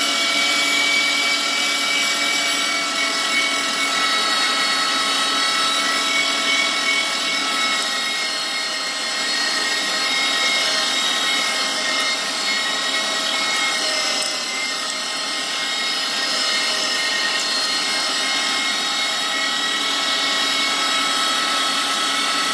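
Electric meat grinder motor running steadily with a whine of several tones, grinding strips of fatty boneless chicken thigh through its finest plate.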